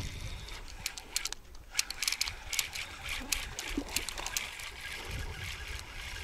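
Spinning rod cast and its reel cranked on the retrieve: a run of quick, irregular clicks and rattles in the first half, over low wind rumble on the microphone.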